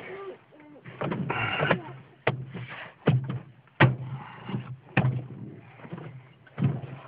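Plastic door trim panel on a 2008 Honda Odyssey sliding door being pressed and slapped into place by hand: a scraping, rattling stretch about a second in, then about five sharp knocks as its clips are seated.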